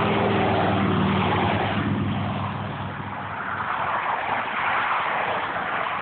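A road vehicle driving past: a low engine hum fades out about two seconds in, leaving a steady rushing noise.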